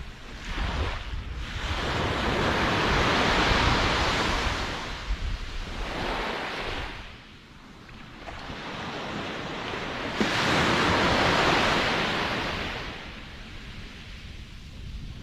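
Ocean waves breaking and washing up the shore: one long surge that builds about two seconds in and draws back, then a second wave that breaks sharply about ten seconds in and fades, with a low rumble of surf and wind on the microphone underneath.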